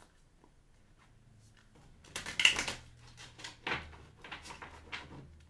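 A tarot card deck being shuffled by hand: a loud rustling, riffling burst about two seconds in, then several shorter shuffles.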